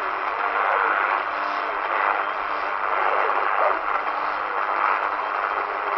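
Tecsun PL-368 portable receiver's speaker playing a weak shortwave AM signal on 2275 kHz: steady hiss and static with a faint voice barely showing through. The signal is a spurious image of Vatican Radio's 13830 kHz broadcast, which the owner thinks may come from the DSP chip's filtering not being right.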